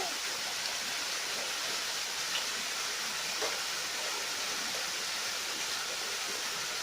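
Steady rush of running river water, with a faint tick or two.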